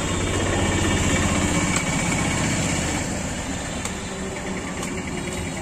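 A small engine running steadily nearby, its low pulsing even throughout, with a few faint clicks over it.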